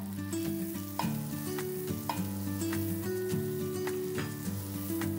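Butter sizzling and foaming as it melts in a hot stainless steel fry pan, a fine steady crackle under background music.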